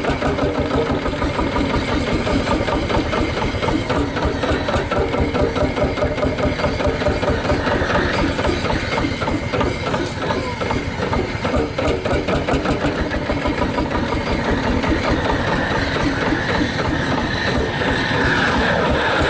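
HSCS G-35 tractor's single-cylinder two-stroke hot bulb engine running with a rapid, even beat.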